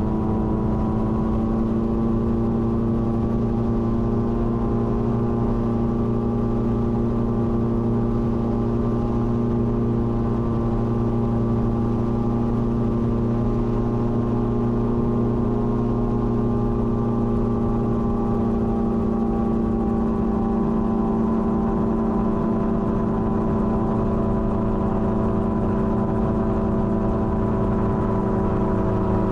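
Gyroplane engine and propeller droning steadily in flight, the pitch dipping slightly near the end.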